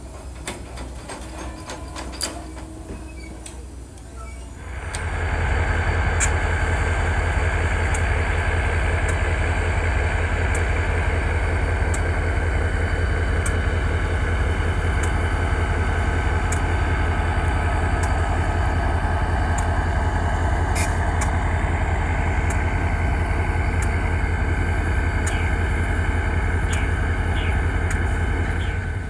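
Diesel locomotive engine running close by with a steady, deep, rapidly pulsing drone. It comes up quickly about five seconds in and holds level until it cuts off.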